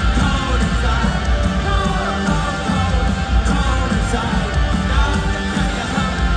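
Live rock band playing loudly through an arena sound system: electric guitars, bass and drums with a singer's voice on top, heard from the stands.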